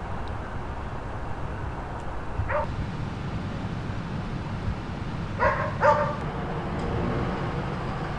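A dog barking, once about two and a half seconds in and twice more close together about three seconds later, over a steady low rumble.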